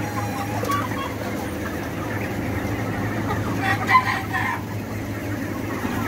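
Chickens clucking over a steady low hum, with one loud call about four seconds in.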